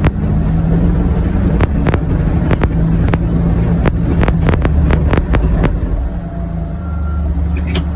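John Deere Gator UVX 835M utility vehicle's engine running steadily while driving, with a string of sharp clicks and knocks in the middle.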